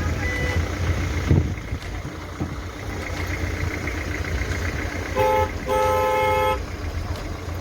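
Vehicle driving along a road with a steady low rumble and wind noise; about five seconds in a horn honks twice, a short toot and then a longer blast of about a second.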